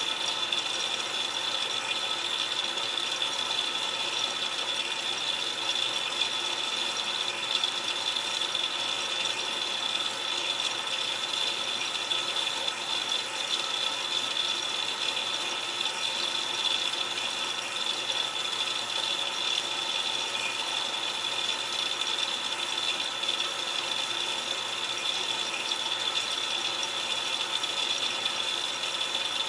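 Miele Touchtronic W3033 front-loading washing machine on its delicate cycle, with water splashing and streaming inside the drum against the door glass. The sound is a steady, even rattling splash with no breaks or changes.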